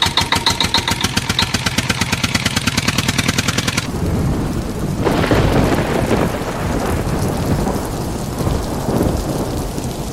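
Kitchen cooking sounds: a fast, even mechanical pulsing for about four seconds, then a loud, dense sizzling hiss like food frying in hot oil.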